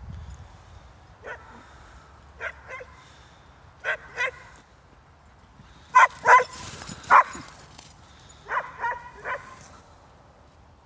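Hungarian Vizslas barking in short barks, mostly in quick pairs or threes, loudest a little past the middle.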